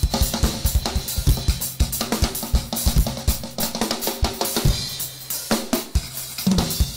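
Live acoustic drum kit playing a fast, busy pattern: rapid kick drum and snare hits under ringing cymbals and hi-hat, with a few low tom hits near the end.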